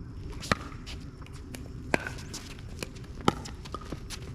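Pickleball paddles hitting the ball during a rally: three sharp pops about a second and a half apart, with fainter clicks between.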